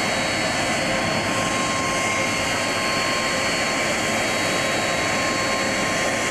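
The General Electric CF6 turbofans of a McDonnell Douglas DC-10-30 trijet running as it taxis: a steady rush of jet noise with a constant high whine.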